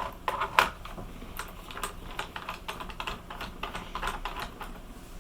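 Irregular plastic clicks and taps from fingers working at a small cover on a Toshiba Dynabook F40 laptop, trying to pry it off. The sharpest clicks come in the first second.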